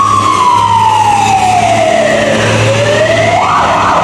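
Siren wailing: one tone sliding slowly down, then starting to climb again, with a rougher, noisier sound joining it near the end, over a steady low hum.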